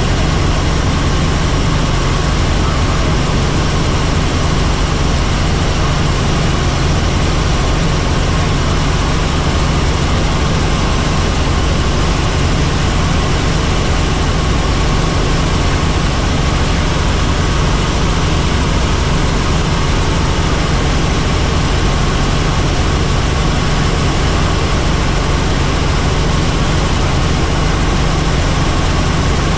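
Helicopter in flight, its rotor and engine running steadily and loud.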